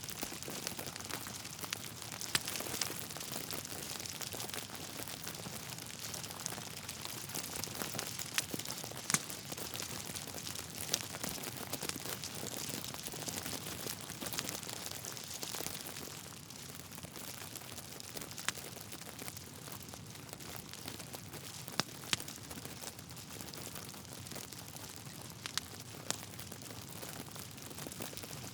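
Logs burning in a fireplace: a steady soft crackle and hiss with sharp pops every few seconds, slightly quieter from a little past halfway.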